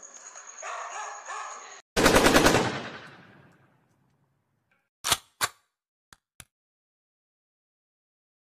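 A dog barking, then about two seconds in a loud short burst of machine-gun fire sound effect that dies away, followed a few seconds later by two single gunshots in quick succession and two faint clicks.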